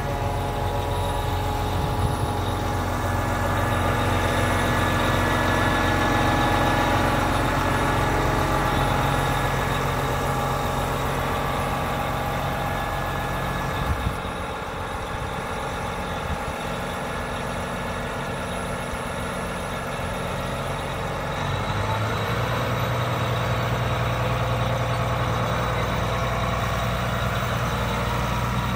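John Deere 8R 370 tractor's six-cylinder diesel engine idling steadily. About three quarters of the way through, the engine speeds up and gets louder as the tractor moves off.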